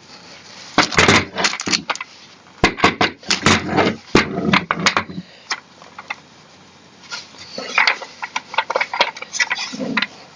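Hard chair parts being handled and set down: irregular clicks, knocks and clatter in two bursts, the first about a second in and the second past the middle.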